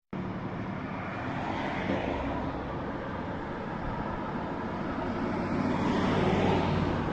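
A steady engine drone that grows a little louder near the end.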